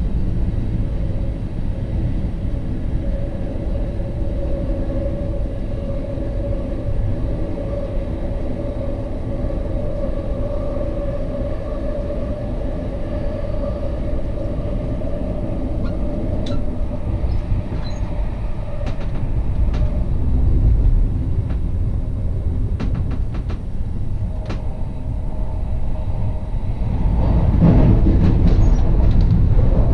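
Class 69 electric multiple unit running along the line, heard from the driver's cab: a steady rumble with a held whine, a few sharp ticks midway, and the rumble growing louder near the end.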